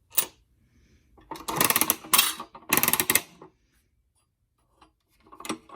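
A quarter clicks into a bouncy-ball vending machine. Its coin crank is then turned with rapid ratcheting clicks, in two spells about one and a half to three and a half seconds in.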